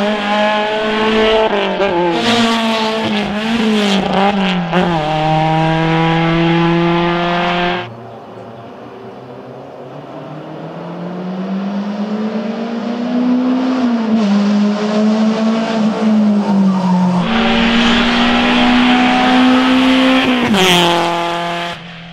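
Škoda hill-climb race car engine at high revs, its pitch climbing and dropping sharply again and again with hard gear changes. The sound cuts abruptly twice. In between, a fainter engine note grows louder as the car approaches.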